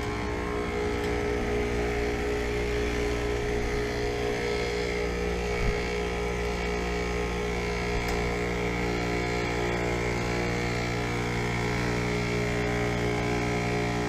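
Outdoor unit of a 2015 3.5-ton Payne heat pump running through its defrost cycle: a steady, even mechanical hum. There is one short knock about six seconds in.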